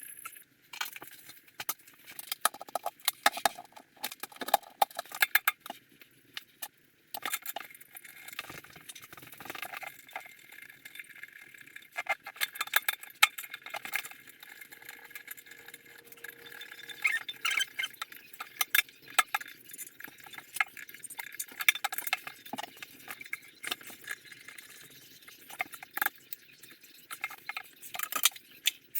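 Irregular sharp clinks and clicks of hand tools and metal hardware on a toilet being installed, going on and off with short pauses.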